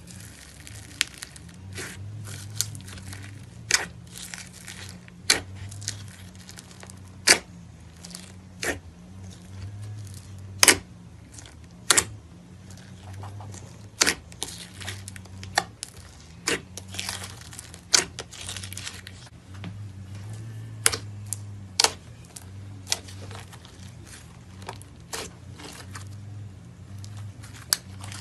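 Foam-bead slime being squeezed and pressed by hand in a plastic tub, giving irregular sharp crackling pops and snaps, a few of them louder than the rest.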